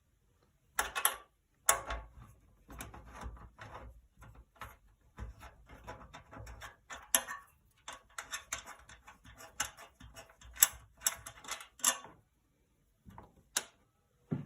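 Irregular clicks, taps and light knocks of small hard parts being handled while an old display header's fixings are dealt with. They start about a second in and come in quick, uneven clusters.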